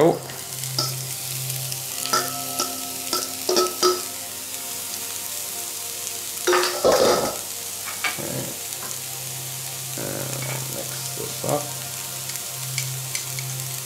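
Grated cauliflower sizzling in a hot frying pan of butter and green onions, a steady frying hiss. Short knocks and scrapes of utensils on the pan come and go, the loudest cluster about halfway through.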